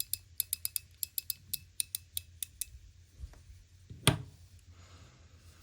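Voyager mechanical push-slider fidget toy being slid back and forth in its detent setting, giving a quick irregular run of sharp clicks. One louder click comes about four seconds in.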